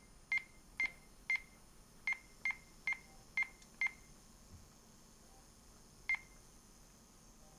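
Pyronix alarm keypad beeping once at each key press. There are eight short beeps in the first four seconds as the arrow keys are pressed to step through the outputs, then a single beep about six seconds in when the tick key is pressed.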